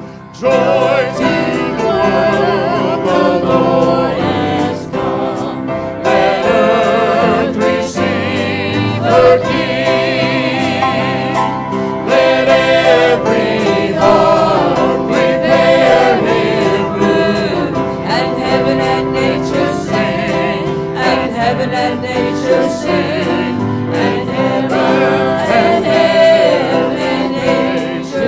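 Voices singing a hymn with instrumental accompaniment, a choir or congregation sound.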